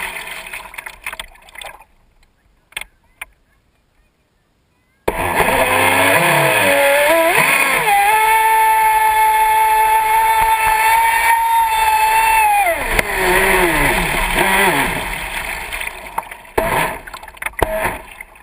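Traxxas Spartan RC boat's brushless electric motor. A whine dies away over the first two seconds, and a few seconds of near silence follow with a couple of clicks. About five seconds in, the whine cuts in loud, winds up in pitch and holds one steady high pitch at full throttle over rushing water for about four seconds, then winds down and fades out in splashy water noise.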